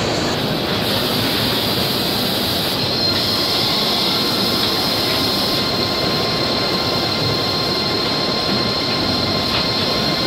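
Steady mechanical din of plastic injection moulding machines running in a large exhibition hall, with a few faint, high, steady whines running through it.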